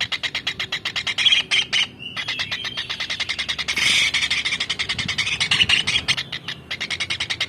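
Kingfisher (tengkek udang) calling vigorously: a fast, evenly pulsed trill of high squeaky notes, with louder shrill calls breaking in about a second and a half in, around four seconds, and again near five and a half seconds.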